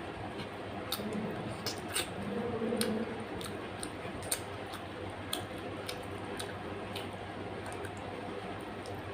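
Close-up eating sounds: wet chewing and lip-smacking of a person eating rice and chicken curry, heard as scattered sharp clicks over a steady background hiss.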